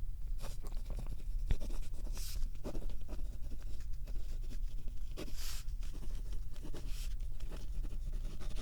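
Handwriting in a paper notebook: many short scratchy strokes on the page, picked up close to the microphone, as a list of tasks is written down.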